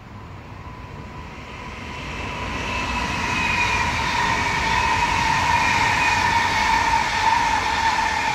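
A Stadler FLIRT electric commuter train (Finnish Sm5) passing close by, its running noise growing louder over the first few seconds, with a steady high whine.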